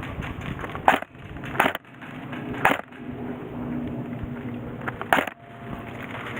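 Four sharp snaps or knocks at uneven intervals, the last a quick double, over steady background noise with a low hum.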